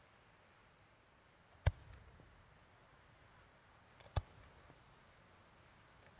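Distant firework bangs: two sharp reports about two and a half seconds apart, each trailed by a low rumbling echo, with a third going off at the very end, over faint steady hiss.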